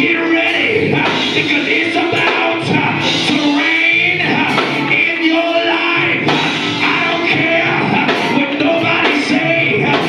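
Loud live church music with voices singing over the band, gospel in style, running without a break.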